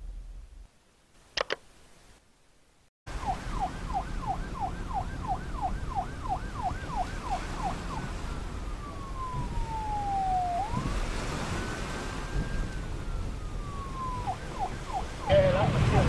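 A single short click about a second and a half in, then from about three seconds an electronic emergency siren cycling between a fast yelp of rapid falling sweeps and a slow wail that falls, rises and falls again, before the fast yelp returns. A louder rumbling noise joins near the end.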